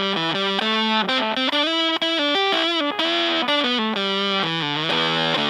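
Fender Stratocaster played through a hand-wired Super Power-Fuzz, a modded Big Muff, into a Fender Blues Junior amp, with the pedal's clipping switch in the middle 'no diodes' position. It plays a fuzz-distorted melodic run of notes, some held and one bent.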